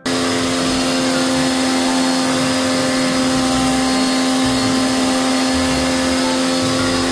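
A cleaning machine's motor running steadily with a loud hiss over a constant hum, working on an air conditioner. It starts and stops abruptly.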